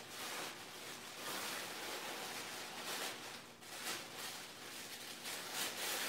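Gift-bag tissue paper rustling and crinkling in irregular bursts as an African grey parrot tugs at it with its beak and a person's hands hold the wrapping.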